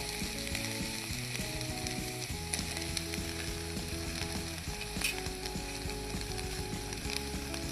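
Onions and tomatoes sizzling in hot oil in a pan while being stirred, with a sharp knock of the spoon against the pan about five seconds in.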